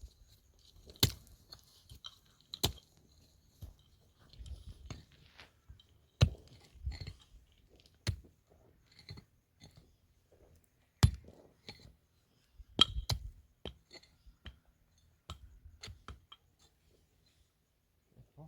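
Irregular sharp clicks and knocks, a second or several apart, with soft low handling rumbles between them.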